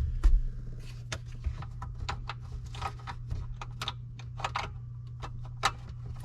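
Gauge cluster being handled in the dash and its wiring connectors pushed in: a run of small plastic clicks, taps and scrapes, with a few low thumps at the start and a steady low hum underneath.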